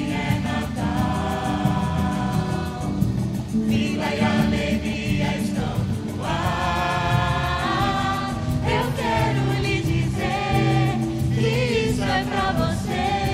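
Church choir singing a Christmas song over musical accompaniment.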